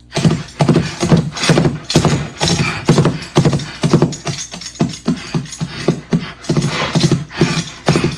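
Clip-clop of horse hoofbeats, a quick even run of about three strokes a second, as made for a film sound effect.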